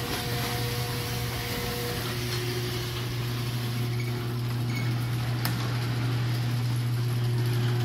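Electric garage door opener raising a sectional garage door, its motor giving a steady hum as the door rolls up its tracks.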